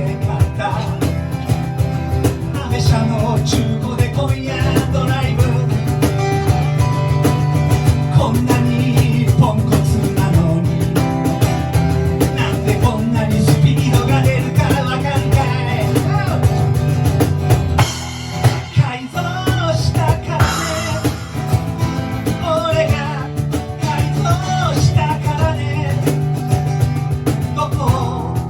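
Live band playing rock with a drum kit and guitar, loud and dense, briefly dropping back for a moment about two-thirds of the way through.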